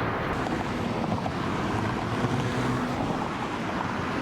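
Wind rushing over the microphone with a steady low rumble underneath, and a faint low hum for a second or two in the middle.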